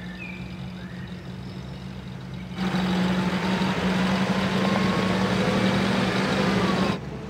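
UAZ police off-roader driving over a rough dirt track, its engine giving a steady low hum. About two and a half seconds in, the engine and tyre noise becomes much louder, then drops off suddenly near the end.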